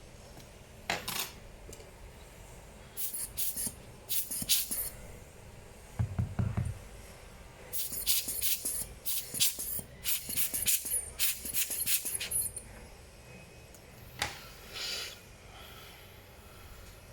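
Small tools and laptop parts being handled: scattered clicks and short scraping strokes in several clusters, with one dull thud about six seconds in.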